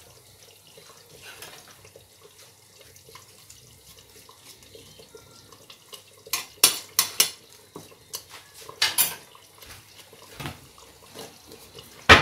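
Dried red chillies and bay leaves sizzle faintly in hot oil in a frying pan. About six seconds in, a spoon clinks sharply against dishes several times in quick succession, and there are a couple more clinks near the end.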